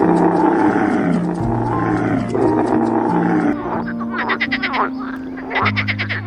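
Animal calls over background music: a long, rough call for the first three and a half seconds, then a series of rapid pulsing calls.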